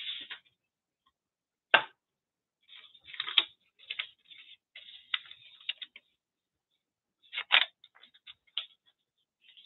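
Scraps of paper being handled and rustled on a cluttered work table, with scattered light ticks and two sharp knocks, one about two seconds in and another more than halfway through.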